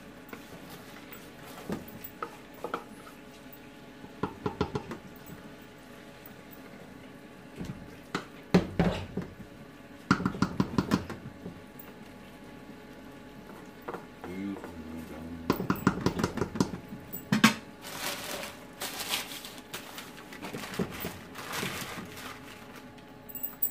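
A wooden spatula scraping and knocking inside a large aluminium pot of rice in several short bouts, then newspaper crinkling and rustling as it is pressed over the pot to seal it for steaming (dum). A steady hum runs underneath.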